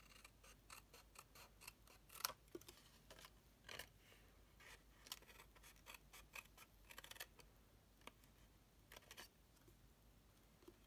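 Small craft scissors snipping through cardstock: a series of short, irregular snips, the loudest about two seconds in.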